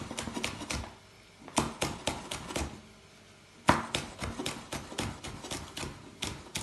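Knife slicing green chillies on a wooden cutting board: quick, even taps of the blade on the board, about four a second, with two short pauses.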